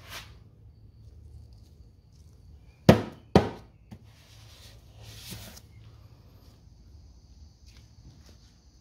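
Two sharp thumps about half a second apart, a gloved hand slapping the plastic cover of a self-propelled lawn mower, followed by a short rustle.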